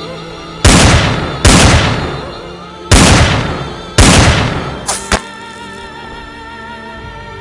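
Background music with four loud bangs, each dying away over about a second, followed by two short sharp cracks about five seconds in.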